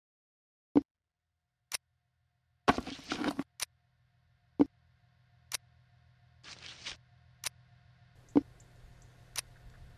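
Sharp, regular ticks about once a second, with two short hissing bursts and a low hum that fades in from the middle.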